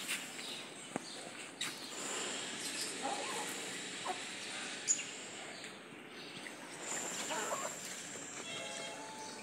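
Hens pecking grain off a brick floor: scattered sharp taps of beaks, with a short pitched call from a bird near the end, over a steady outdoor background.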